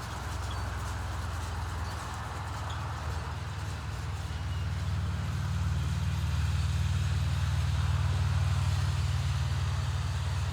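John Deere tractor pulling a New Holland hay baler in the field, its engine a steady low hum that grows louder as it comes closer, loudest about eight seconds in, then eases slightly.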